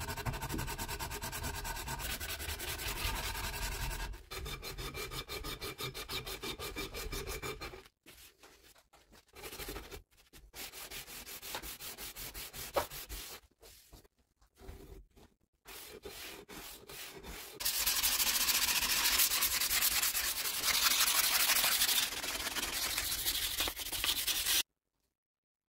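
Sanding: rapid rubbing strokes of abrasive on the workpiece, in several stretches with short pauses between them. The last stretch is the loudest and it cuts off abruptly near the end.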